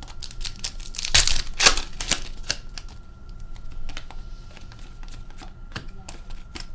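Upper Deck Series 1 hockey trading cards being flipped through by hand, one card slid off the stack after another: a run of quick dry clicks and snaps, busiest and loudest about a second in, then sparser.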